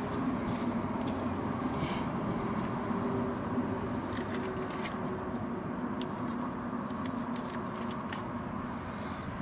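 A vehicle engine running steadily, with light clicks and rattles scattered throughout.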